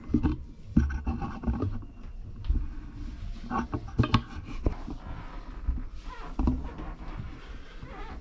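Irregular knocks, bumps and rubbing of a camera being handled and moved about, with the two loudest knocks a little after four seconds in.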